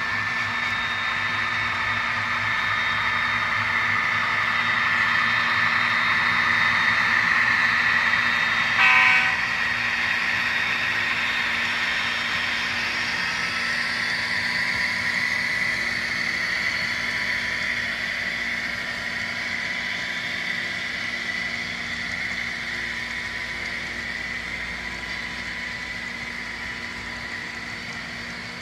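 Steady rolling noise of a long model freight train's cars running over the layout's track, swelling and then slowly easing off as the cars go by. A brief horn blast sounds about nine seconds in.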